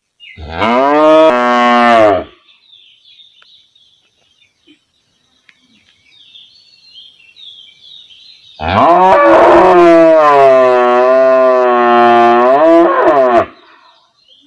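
Cow mooing twice: a short moo of about two seconds, then after a pause a long moo of about five seconds. Faint bird chirps in the gap.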